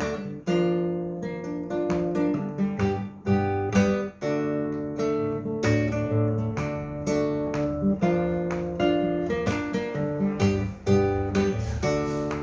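Acoustic guitar strummed in a steady rhythm, about two to three strokes a second, with full chords changing every second or so: an instrumental passage with no singing.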